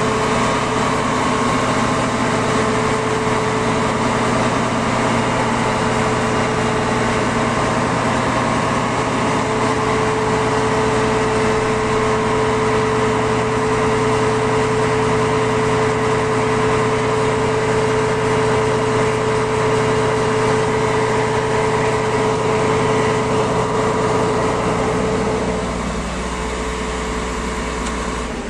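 Claas Lexion combine harvester running: a loud, steady mechanical drone with a high whine over it. Near the end the whine stops and the drone drops a little.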